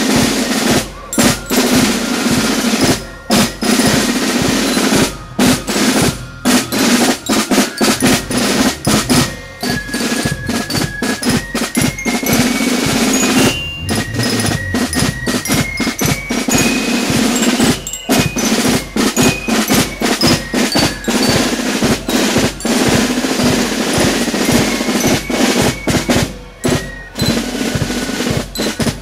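Marching band music: snare drums playing a rapid rolling rhythm, with a high melody of short held notes stepping up and down above it.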